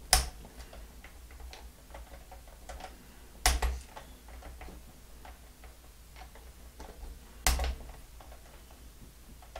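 Small clicks and ticks of a hex key working the pivot-ball adjusting screw of an RC buggy's front steering knuckle while the knuckle is moved by hand, with three louder clicks about four seconds apart.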